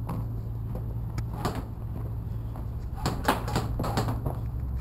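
Footsteps and handling noise from a moving handheld camera: scattered knocks and clicks, busiest about three seconds in, over a steady low hum.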